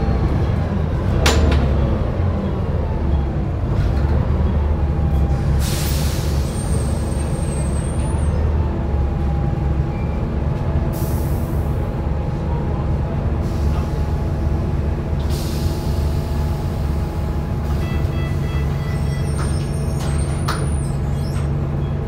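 Volvo B7TL double-decker bus's six-cylinder diesel running low and steady, heard from the upper deck, with a whine that rises and falls. Three short air hisses from the brakes come through, along with a click near the start and two brief high squeaks.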